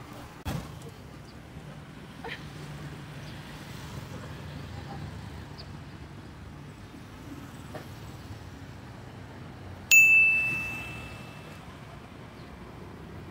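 Steady hum of light street traffic, with a single loud metallic ding near the end that rings on for about a second and a half.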